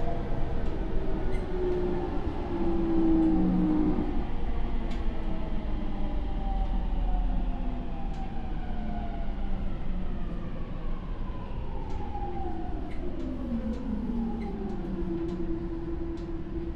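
Mitsubishi IGBT VVVF inverter and traction motors of a JR E231-800 series electric train, heard inside the motor car over wheel-on-rail rumble. Several whining tones glide downward in pitch, most clearly from about ten seconds in, then settle into one steady hum near the end, as the train slows for a station under motor braking.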